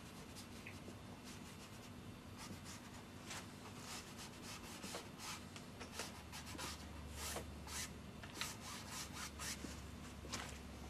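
Oil paint being worked onto a canvas with a small painting tool: short, irregular rubbing and scraping strokes that come more often in the second half.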